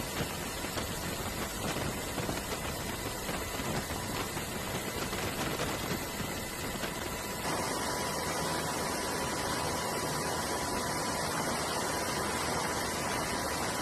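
Steady rushing hiss of wind and sea from a warship under way, with a faint steady high tone. The sound changes abruptly about halfway through, as at a cut between shots.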